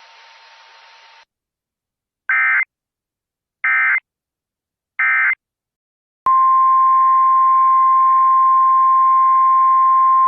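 Three short bursts of Emergency Alert System SAME digital data tones, about 1.3 seconds apart, then a loud, steady single-pitch attention tone near 1050 Hz, the kind used by NOAA Weather Radio to signal an incoming warning.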